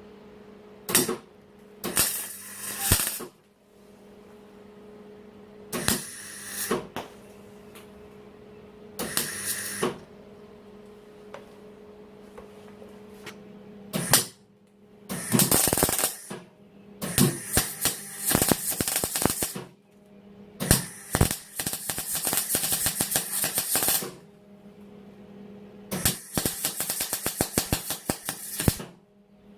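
Arc welding crackling in a series of stop-start runs, some under a second and others up to about three seconds long, as a steel blanking plug is welded around the end of a cut motorcycle frame tube. A steady hum carries on in the pauses.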